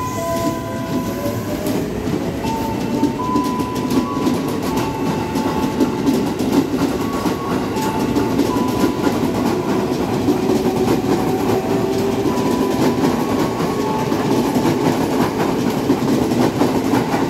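Tokyo Metro 6000 series electric multiple unit running past, its VVVF inverter whining in tones that shift in steps, with a rising whine in the first couple of seconds. Under it, the wheels rumble and clatter over the rail joints.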